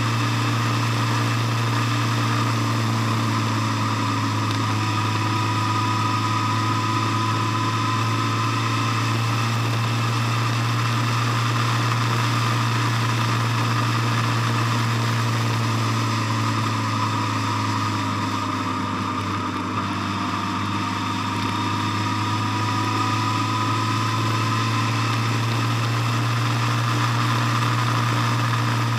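Vehicle engine droning steadily while driving at a constant cruising speed, with a faint whine above the drone. The sound eases off slightly about two-thirds of the way through.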